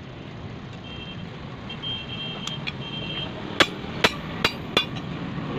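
Four sharp metal-on-metal taps on a forged axe head lying on a steel block anvil, about two or three a second, starting past halfway. Before them a steady low rumble with a faint high beeping in three short runs.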